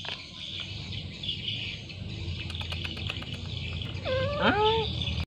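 A domestic cat gives one short meow about four seconds in, its pitch rising then falling, over continual bird chirping and a low steady hum.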